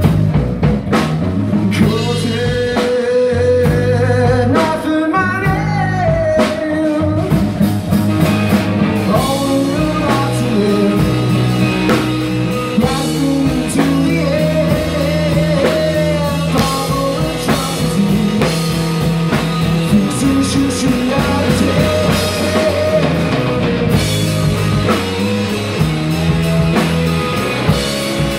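A rock trio playing live: electric guitar, electric bass and drum kit, with a melodic lead line bending in pitch over steady bass notes and busy drums and cymbals.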